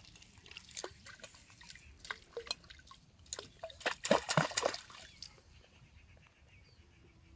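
Water splashing and dripping at the surface of a shallow canal, with scattered small splashes and a louder cluster about four seconds in beside the fishing float, then quieter.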